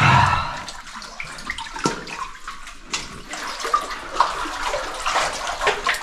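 Water sloshing and splashing as a person wades chest-deep through a flooded cave passage, pushing a floating bag. A louder swash right at the start, then scattered small splashes and trickles.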